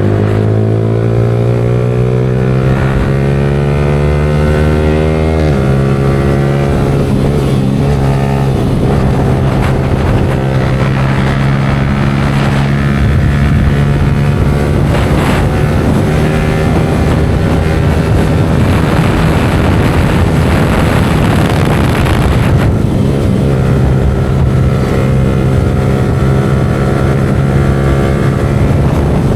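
Yamaha R15 V4's single-cylinder engine on the move through a Leo Vince aftermarket exhaust. The revs climb for about five seconds and drop sharply at a gear change, then the engine holds a steady cruising note, with a rush of wind noise through the middle part.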